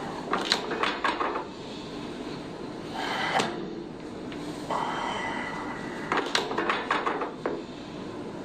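Cracks and clacks of a chiropractic spinal adjustment, from the patient's joints and the treatment table: a quick run of several sharp cracks about half a second in and another run around six seconds in, with a brief rush of noise between them.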